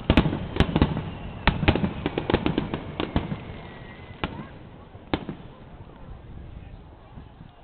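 Fireworks display: a quick volley of shell bursts banging and crackling for the first three seconds, then two single bangs about four and five seconds in, as the sound dies away.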